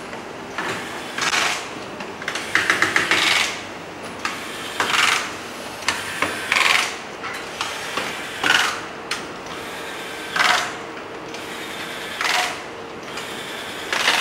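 Corded electric screwdriver driving small screws into a plastic housing in short runs of a fraction of a second, every second or two. One longer run near the start breaks into a quick string of clicks.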